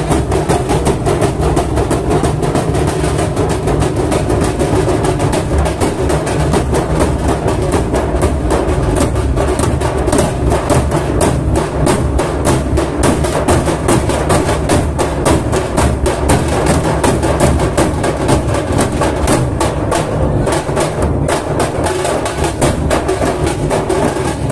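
Maharashtrian dhol-tasha troupe playing: big barrel dhol drums pounding under sharp, rapid tasha strokes in a dense, unbroken rhythm.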